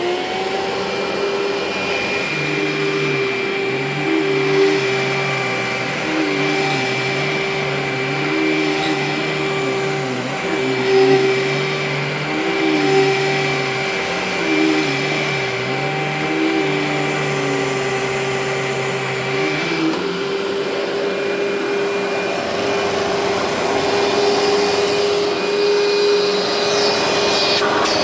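Amway ClearTrak upright vacuum starting up and running without filters: a steady motor whine, with a lower hum under it that rises and falls every couple of seconds. About twenty seconds in, the lower hum drops away and the running sound turns more airy.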